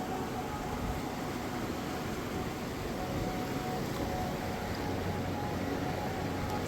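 Steady rush of the Suiattle River's flowing water, an even noise with no breaks.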